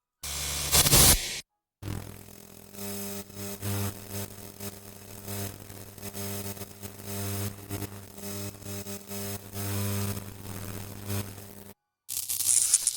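Electrical noise effects. First a short, loud buzzing zap, then a steady electrical hum that wavers and pulses in level, with a crackling hiss above it, for about ten seconds. Near the end, after a brief silence, a sharp, dense crackle starts.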